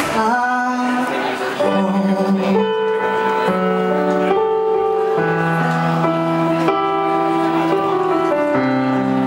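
Live pop song on electric keyboard with a male singer: a sung phrase slides off at the start, then held keyboard chords change about once a second.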